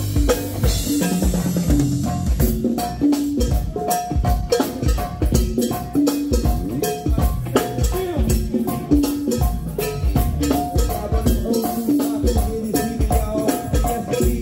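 A live band playing a go-go groove. A drum kit and hand percussion keep a dense, steady beat under repeating bass and melodic notes, with no singing yet.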